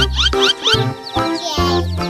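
Upbeat children's background music with a steady bouncy beat and short chirping synth notes, and sliding whistle-like tones near the end.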